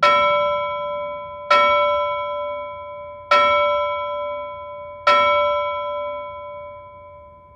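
Four struck bell tones sounding the same chord, about a second and a half to two seconds apart, each ringing out and slowly fading; the last one dies away near the end.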